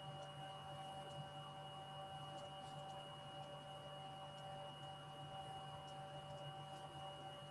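Faint steady electrical hum: a low buzz with several constant higher tones, the clearest a thin high whine, over a light hiss.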